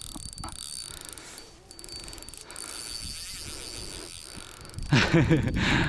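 Spinning reel's drag giving line with a fine, fast clicking buzz while a large fish pulls against the loosened drag. A man's voice comes in near the end.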